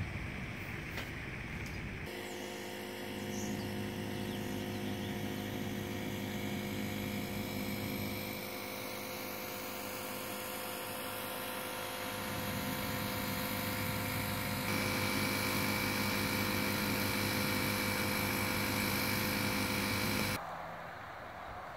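A steady mechanical drone made of several even tones, like a motor running at a constant speed. It starts suddenly about two seconds in, grows louder about two-thirds of the way through, and cuts off abruptly near the end.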